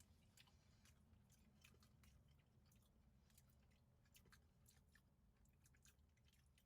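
Faint chewing of a bite of soft flourless chocolate cake cookie, with small, irregular mouth clicks.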